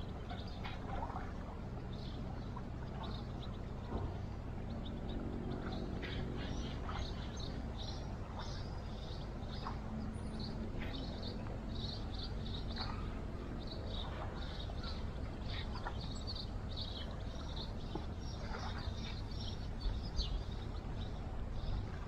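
Birds chirping in many short, high calls over a steady low rumble of background noise.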